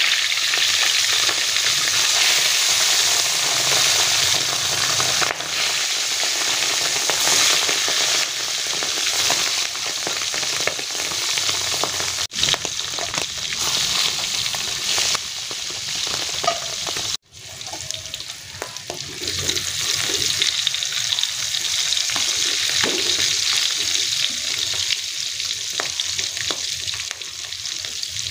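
Pieces of beef lung deep-frying in hot oil in a wok: a loud, steady, dense sizzle that breaks off for an instant about twelve and seventeen seconds in.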